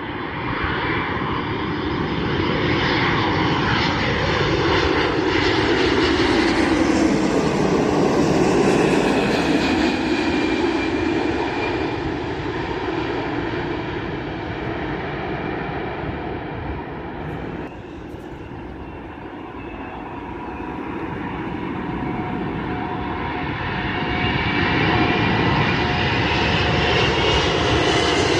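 Boeing 787-9 jet airliner on final approach passing low overhead: its engine noise swells, then fades away as the whine falls in pitch. After an abrupt cut about two-thirds of the way through, an approaching Airbus A380's engine noise and whine grow steadily louder.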